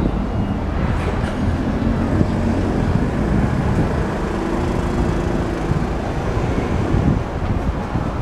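Steady road traffic noise, a dense low rumble of passing vehicles, with an engine hum that comes up in the middle and fades before the end.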